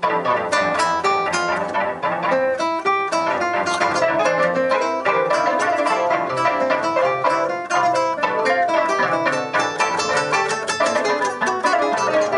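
Music of rapidly plucked strings, a dense, unbroken run of quick notes.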